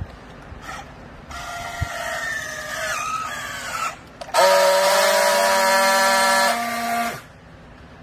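Battery-powered handheld strapping tool working a plastic strap around a bale: its motor runs with a wavering, sagging whine as it tensions the strap, then, after a short pause, a louder steady buzz for about three seconds as it welds the strap, cutting off sharply about seven seconds in.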